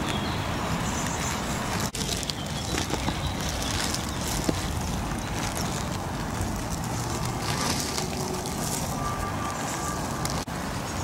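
Steady rain falling, an even hiss with fine patter.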